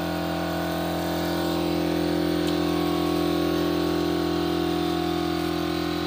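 Air compressor for a paint spray gun running steadily: a constant hum of several held tones.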